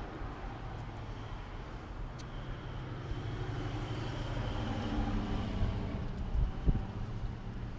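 Vehicle engine running with a low steady rumble that grows louder about five seconds in, with a single knock near the end.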